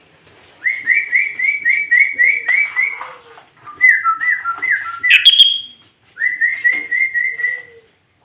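A songbird's whistled song: a quick run of repeated slurred notes, then a varied phrase ending on a higher note about five seconds in, then another run of the same repeated notes.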